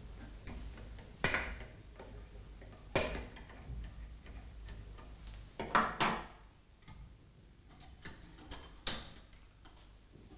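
Sharp metallic clicks and clinks of circlip pliers and steel parts on a Walterscheid driveshaft universal joint in a bench vise, as the bearing bushes are secured with circlips. About five separate clicks, two of them close together about six seconds in.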